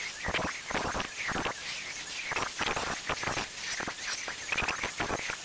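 Onefinity CNC's 1/4-inch end mill cutting a 2D contour through plywood stock: a dense, irregular crackle of cutting over a faint steady high whine.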